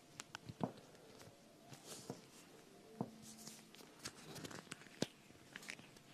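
Quiet, irregular clicks and taps with brief soft rustles between them, about a dozen in all, a few with a low thud, the strongest under a second in and again near five seconds.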